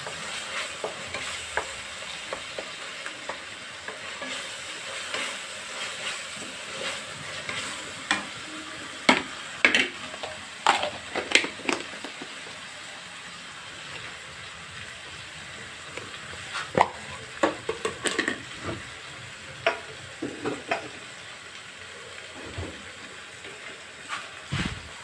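Onion-and-spice masala with ginger-garlic paste sizzling as it is roasted in a stainless steel kadhai. A wooden spatula stirs and scrapes through it, with irregular knocks against the pan that come thickest a third of the way in and again past the middle.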